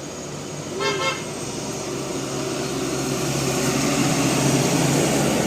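A single short bus horn toot about a second in, then a bus's engine and road noise growing steadily louder as it approaches.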